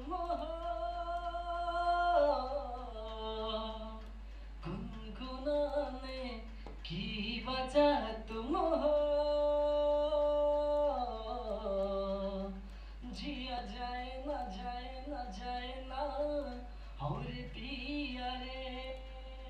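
Playback of a recorded solo vocal, sung unaccompanied, passing through Auto-Tune Evo pitch correction and a compressor: long notes held at a flat pitch, then stepping down, with short breaks between phrases.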